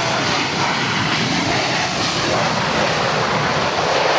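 Airliner engines running close by: a loud, steady rushing noise.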